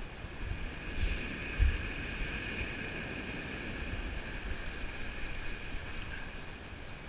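Wind buffeting the microphone over the steady noise of surf breaking and drawing back on a shingle beach, with two louder gusts about a second and a half in. A faint steady high whistle runs underneath.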